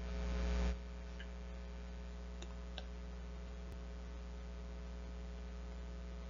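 Steady electrical mains hum with a faint hiss from the recording setup. A louder hiss rises over the first moment and cuts off suddenly under a second in, and there are a couple of faint ticks.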